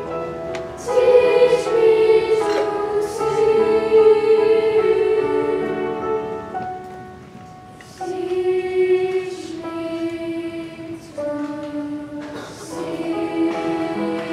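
Children's choir singing in unison, holding long notes; one phrase fades out about seven seconds in and a new phrase starts about a second later.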